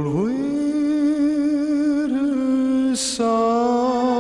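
Male crooner singing a slow ballad line in long held notes with a gentle vibrato, over a soft music backing; a brief hissed 's' cuts through about three seconds in.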